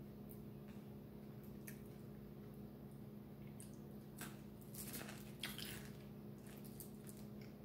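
Eating sounds: wet chewing and lip smacks with short clicks of fingers on food, most of them about four to six seconds in, over a low steady hum.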